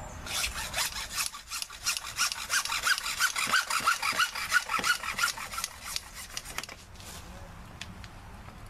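Hacksaw cutting through a white PVC sump-pump discharge pipe with quick back-and-forth strokes. The sawing stops about two seconds before the end as the pipe is cut through.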